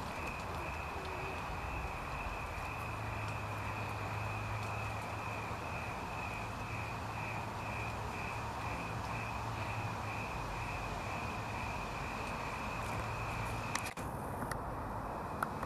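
Crickets chirping in a steady, evenly pulsing trill over night-time background hiss, with a low hum underneath for several seconds in the middle and a single sharp click near the end.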